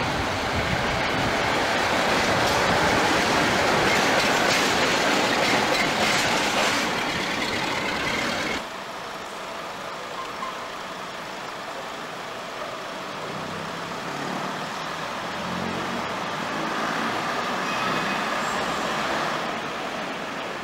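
A loud, steady rushing noise that cuts off abruptly about eight and a half seconds in. It gives way to a quieter first-generation British Rail diesel multiple unit, whose underfloor diesel engines run with a low hum that builds for several seconds as the unit pulls away.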